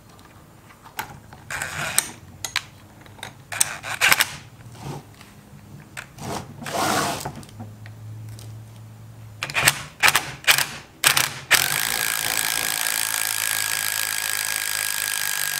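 Clicks and clatter of a socket and wrench being fitted to a bolt. About three-quarters of the way in, a cordless impact starts and runs steadily with a high whine, driving the bolt that presses an old rubber bushing out of the steering rack's mount.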